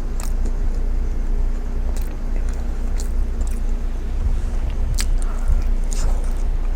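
Close-up chewing and biting of a burger, with scattered wet mouth clicks over a steady low hum.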